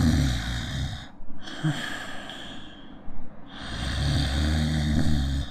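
A man snoring on purpose, drawing breath in with his tongue and lower jaw pulled back so the narrowed airway makes the soft tissue of the throat vibrate. There are two low, buzzing snoring inhalations: one at the start and a second beginning about three and a half seconds in.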